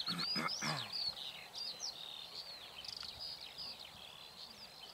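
Small songbirds singing in a continuous chorus of high, quick twittering chirps and trills. A low murmur of a man's voice comes briefly in the first second.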